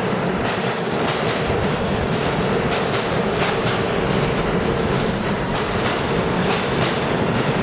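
New York City subway R train rolling into an underground station, its cars running past with a steady rumble and a hum, and the wheels clicking over rail joints.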